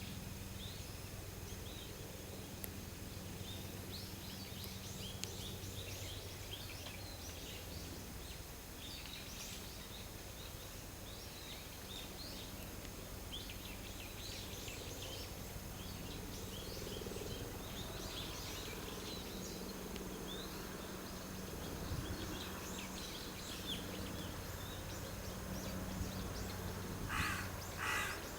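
Small birds chirping and twittering in quick, high, scattered notes over a steady low hum. Near the end a larger bird gives three louder, harsher calls.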